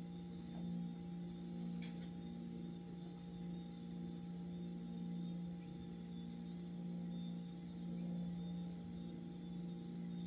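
A steady low hum with a few fainter higher tones over it, slowly swelling and fading every couple of seconds, with a couple of faint clicks.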